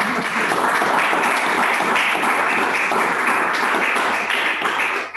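Audience applause: steady clapping that stops near the end.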